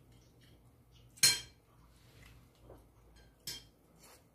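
Cutlery clinking against dishes while eating: one sharp clink about a second in and a softer one near the end.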